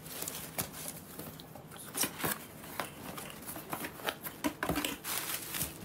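Hands rummaging through a cardboard box of gifts: irregular rustling, scraping and light knocks of paper, plastic and packaged items being handled.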